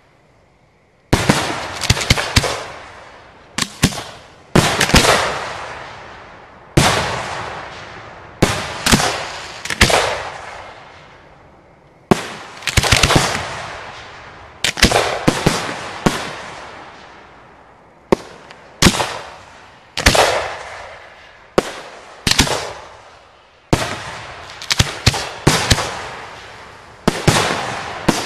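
Display fireworks shells firing and bursting in a steady sequence: sharp bangs, some single and some in quick clusters of two to four, coming every second or two, each trailing off in a rolling echo. The bangs begin about a second in, after a brief lull.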